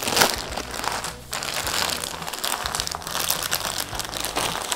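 Clear plastic bag full of jigsaw puzzle pieces crinkling as hands work it open, with many small crackles throughout.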